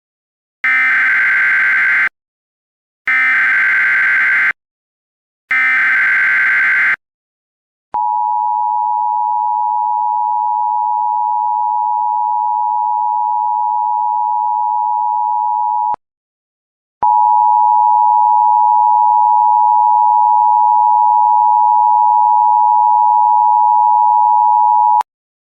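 Emergency Alert System signal for a Child Abduction Emergency (Amber Alert). First come three short warbling SAME header data bursts, each about a second and a half long with a short pause between them. Then a steady attention tone sounds for about eight seconds, breaks off for a second, and returns slightly louder for about eight more seconds.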